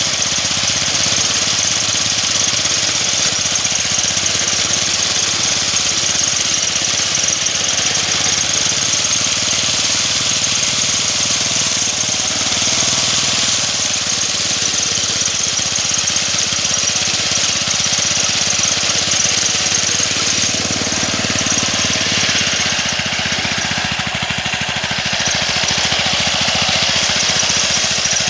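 Homemade engine-driven grass cutter running steadily at working speed while it cuts through thick grass and brush, with the sound dropping a little for a few seconds about three quarters of the way through.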